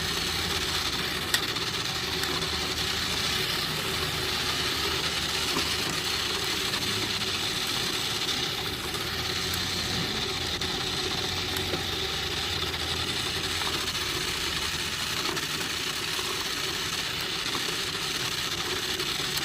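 Remote-control toy Jeep running steadily, its small electric motor and gears whirring with a rattle, running slower on a nearly flat battery as the driver thinks. One sharp click about a second and a half in.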